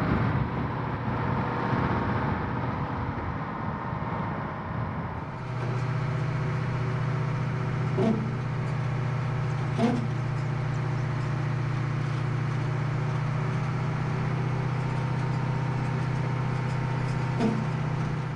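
International service truck towing a loaded lowboy trailer, its engine and the rig's travel running rough and noisy at first. About five seconds in the sound changes to a steady low drone, heard from on the moving trailer. Three brief knocks stand out in the drone.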